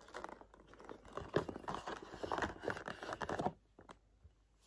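Cardboard gift box and its insert crinkling and scraping as a ceramic mug is pulled out of its compartment, a dense run of small crackles and scrapes that stops about three and a half seconds in.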